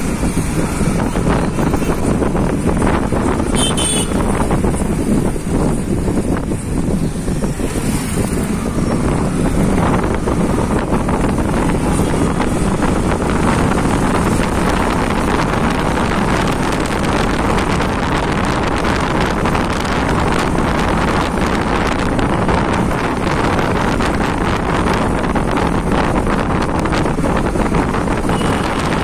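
Steady wind rush on the microphone of a moving motorcycle, with the bike's running engine and road noise underneath.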